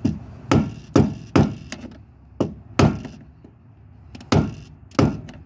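Screwdriver knocked against a tab of a fuel pump lock ring: about eight sharp, uneven knocks as the ring is driven round to ride over a hump and drop into its locking slot.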